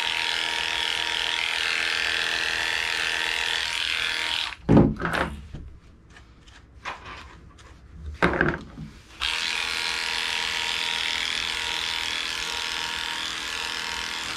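Heiniger electric dog clipper running with a steady hum, its motor a slow one, then switched off about four and a half seconds in. A knock, several slicker-brush strokes through the coat and another knock follow, and the clipper hums again from about nine seconds in.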